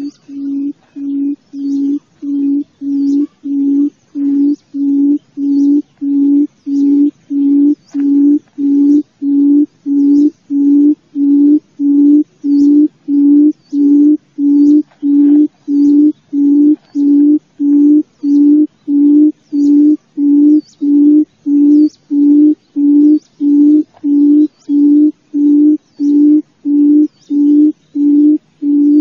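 Barred buttonquail (wild quail) giving its low, hollow booming call: a long, even series of coos at about one and a half a second, building in loudness over the first few seconds and then holding steady.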